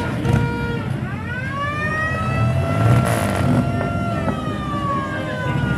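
A siren winds up in pitch about a second in, holds, then slowly falls away, over the low rumble of slow-moving vehicle engines.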